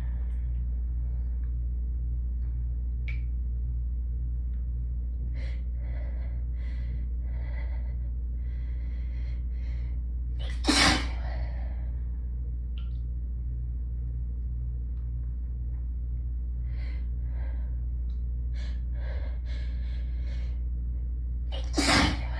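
A person's hayfever sneezing fit: two loud sneezes, one about halfway through and one near the end, each led by a few seconds of short, catching gasps. A steady low hum from a room air conditioner runs underneath.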